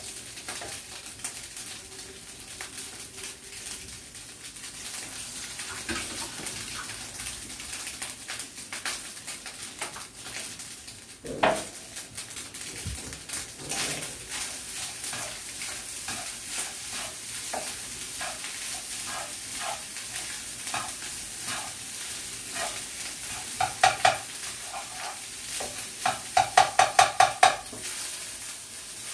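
Fried rice sizzling in a frying pan over a gas flame while a spatula stirs and scrapes it. Near the end comes a quick run of sharp clinks of the spatula against the pan.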